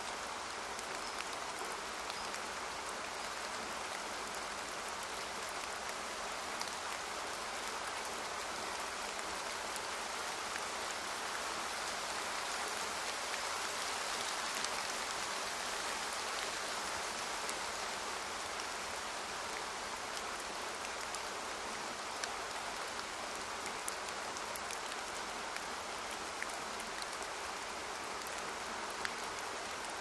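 Rain falling steadily, an even hiss with a few scattered drop ticks.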